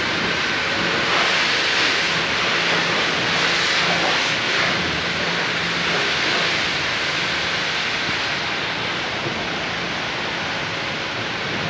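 Steady rushing hiss of a pressure washer spraying water in a car wash bay, with a low steady hum underneath.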